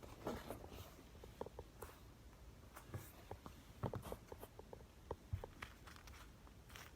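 Faint handling noises of a foam squishy toy being squeezed and flattened by hand: scattered soft clicks and rustles.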